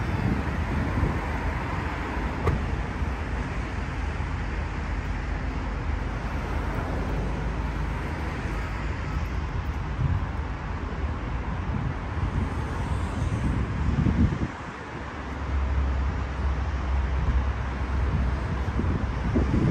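Steady traffic noise from a busy multi-lane highway, cars passing, with a brief lull about three-quarters of the way through.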